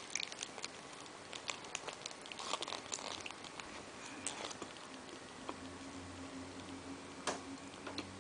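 Close-up mouth sounds of someone biting and chewing soft food held in a paper napkin: wet smacking and many small clicks, busiest in the first half. A low steady hum comes in about halfway through.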